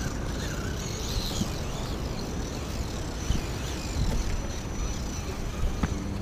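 Wind rumbling on the microphone, with a few light knocks.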